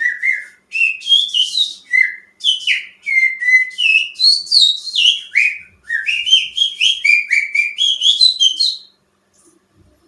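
Finger whistling imitating a greater green leafbird (cucak ijo) song: quick, chirpy runs of sliding whistled notes in short phrases with brief breaks, stopping about a second before the end.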